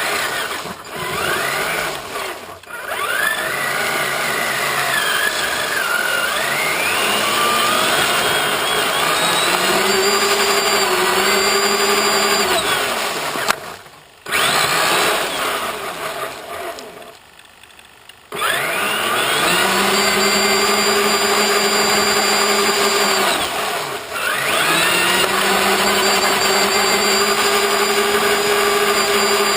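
Electric motor and geartrain of a Traxxas Summit RC truck whining as it speeds up. The pitch climbs to a steady high note, holds for a few seconds, then drops as the truck slows. This happens three times, with a quieter gap in the middle.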